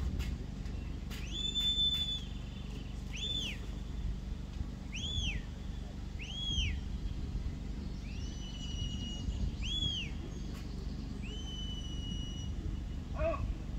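Shrill whistled commands of the kind used to direct a herding dog: a string of short rising-and-falling notes about a second and a half apart, mixed with a few long level notes. Wind rumbles on the microphone underneath.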